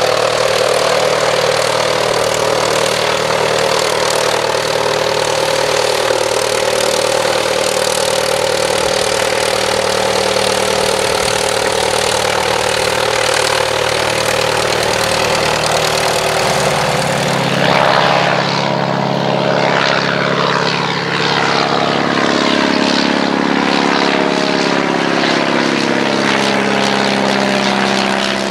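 Replica Halberstadt D.IV biplane's piston engine and propeller running steadily on the ground. About two-thirds of the way in the sound changes to the plane in flight, its engine note falling slowly in pitch.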